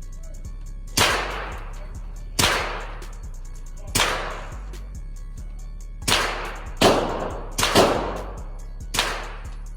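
Glock pistol in an MCK micro conversion kit firing eight single shots at uneven intervals, each with a short echoing tail, two of them in quick succession about three quarters of the way in. Background music with a low beat runs underneath.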